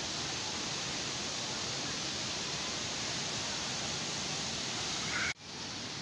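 Waterfall's steady rush of falling water. About five seconds in it breaks off abruptly and a similar, slightly quieter rush of flowing water follows.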